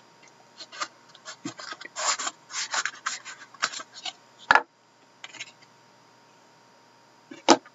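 Cardboard and card stock scraping and rubbing as a tightly packed stack of hockey cards is worked out of a foam-lined box. A sharp knock comes about halfway through and another near the end.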